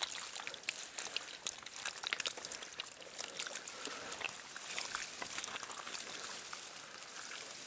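Shallow stream water trickling and splashing among stones, with many small irregular splashes.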